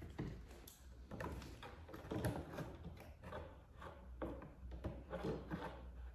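Scattered clicks, knocks and rustles of a cardboard box and its packaging being handled, over a low steady hum.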